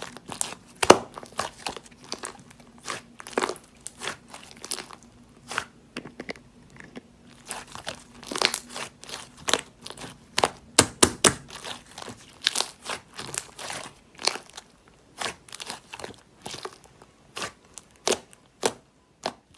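Paper and sticker sheets crinkling and being handled, with frequent short crackles and light taps at an uneven pace.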